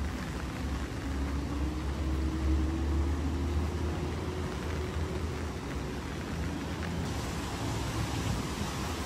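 Road traffic on a wet city street: a motor vehicle's low engine rumble swells over the first few seconds, with its engine tone rising slowly as it pulls away, over a steady wet-street hiss.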